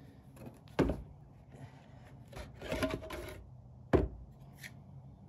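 Rough-sawn lumber being set down on a wooden stand: two sharp knocks of wood on wood about three seconds apart, with a short scraping slide of wood on wood between them.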